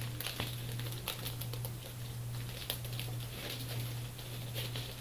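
Light rustling and scattered small clicks from bagged comic books being handled and shuffled, over a steady low hum.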